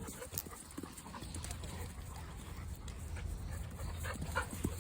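Golden retriever panting, with scattered light ticks and a steady low rumble underneath.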